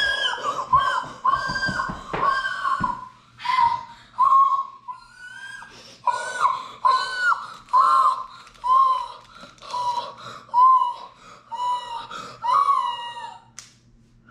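A boy's high-pitched, wheezy squeals and sobbing cries, about one a second, with breaths between. He is overwhelmed with excitement and crying.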